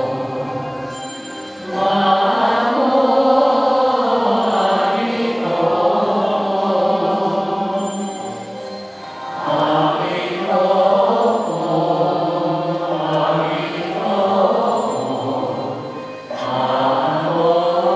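Buddhist chant sung in slow, drawn-out melodic phrases, with brief pauses between phrases.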